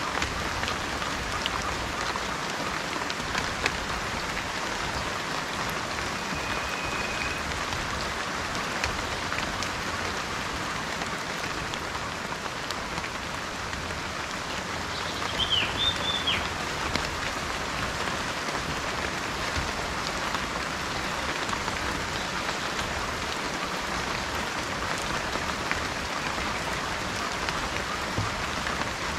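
Steady rain falling, with a short whistled bird call about six seconds in and a couple of quick bird chirps about halfway through.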